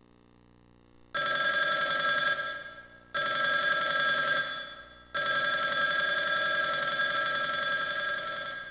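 Synthesized ringing sound effect from the TJ Media WOW-7800 karaoke machine's sound module (Roland SC-88 and Dream SAM9703). It rings in three bursts about two seconds apart, and the last is held longest before it cuts off.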